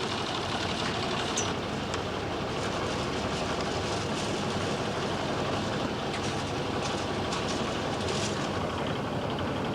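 Sailboat's auxiliary engine running steadily under way, a continuous rumble mixed with the hiss of wind and water.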